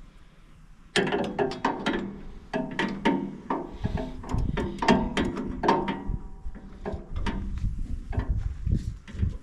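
Hand tools working metal parts on a combine header: an irregular run of sharp metallic clicks, knocks and clanks, some briefly ringing, starting about a second in.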